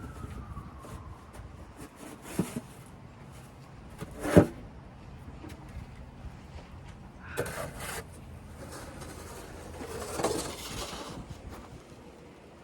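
Snow shovel at work: a few separate scrapes and knocks of the blade, the loudest a sharp knock about four seconds in and a longer rasping scrape near the end.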